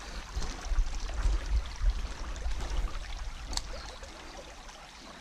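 Shallow creek trickling over rocks, with a low rumble through the first three seconds that fades away and a single sharp click about three and a half seconds in.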